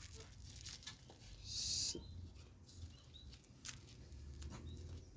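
Faint handling sounds of thin PE plastic film being tied around an air-layering wrap on an apple branch: soft rustles and small clicks, with one brief hissing rustle about a second and a half in.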